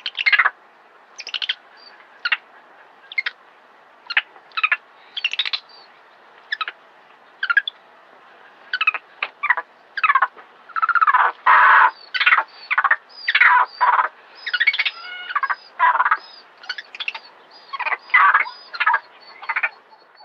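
A monkey's short, sharp shrieking calls, given over and over: scattered at first, then coming thick and louder through the second half. They are distress calls from a monkey caught up with a snake.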